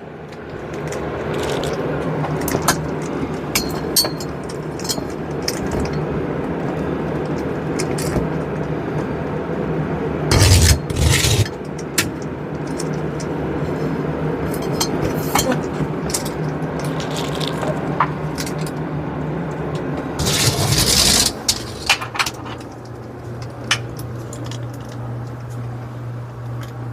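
Handling noises: scraping and rustling with scattered light clicks and clinks over a steady low hum, with two louder rustling bursts, one about ten seconds in and one about twenty seconds in.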